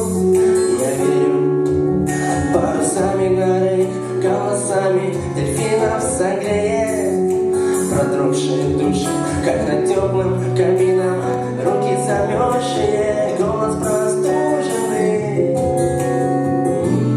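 Music: a song with guitar and sustained bass notes under a sung melody line.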